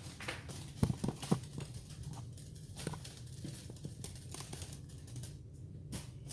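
A few light knocks and clicks of things being handled in a kitchen, a cluster of them about a second in, over a low steady hum.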